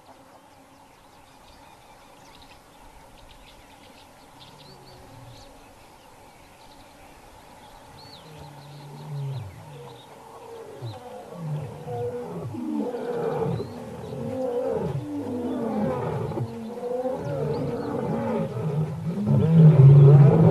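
Lions roaring: a long bout of repeated calls, each falling in pitch, starting soft about eight seconds in and growing steadily louder, with several calls overlapping. Faint bird chirps are heard before the roaring begins.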